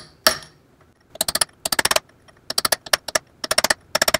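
Hammer tapping a steel punch to drive a Woodruff key into its slot in an engine crankshaft, metal on metal. One ringing strike, then from about a second in, several quick runs of rapid light taps.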